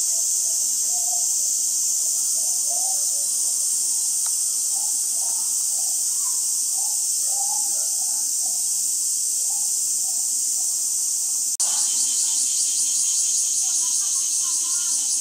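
A loud, steady, high-pitched insect chorus with faint voices under it. About 11 seconds in it breaks off for an instant and resumes with an even pulsing beat.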